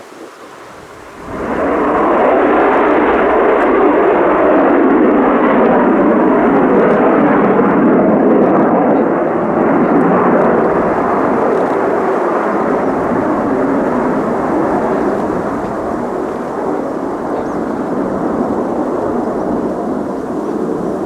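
Military jet engine noise that comes in suddenly about a second in as a loud, steady rushing roar, then slowly eases off over the second half.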